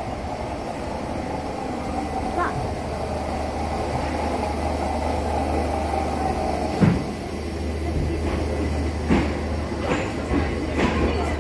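Class 313 electric multiple unit standing at the platform with its doors open, humming steadily. A sharp thump comes about seven seconds in, and a few lighter knocks follow near the end.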